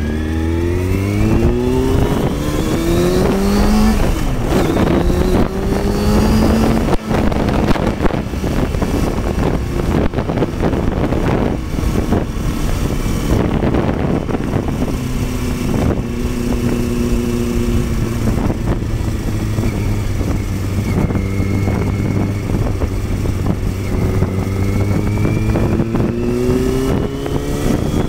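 Kawasaki ZX-6RR sport bike's inline-four engine on the move, accelerating through the gears: the pitch climbs, drops at a shift about four seconds in, climbs again and drops once more about seven seconds in. It then holds a steadier note for a while before climbing again near the end.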